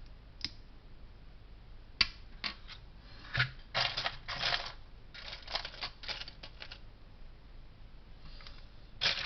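Small plastic Lego bricks clicking and clattering as they are handled: a few sharp clicks, then short bouts of rattling through the middle and again near the end.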